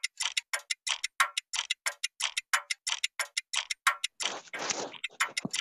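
Countdown-timer sound effect from a PowerPoint quiz game: fast, even clock ticking at about six ticks a second. Near the end it gives way to a short stretch of rushing noise.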